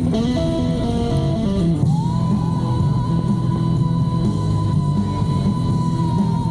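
Music: a quick run of notes stepping downward, then one long held high note from about two seconds in, over a steady low accompaniment.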